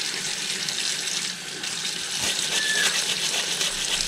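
A plastic dish brush scrubbing a wet cut-glass lamp shade in a ceramic sink, with water running in the background and a brief squeak a little under three seconds in.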